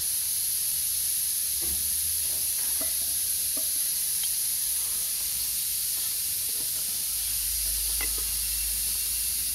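Steady high hiss with a few faint light metal clicks as internal parts are set by hand into an automatic transmission case.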